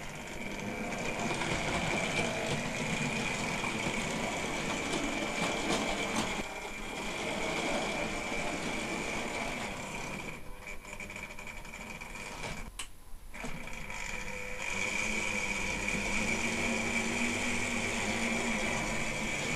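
Tri-ang Hornby model train running on sectional track: a steady electric-motor whine over the rattle of wheels on rail. It fades briefly twice, about ten seconds in and again about three seconds later.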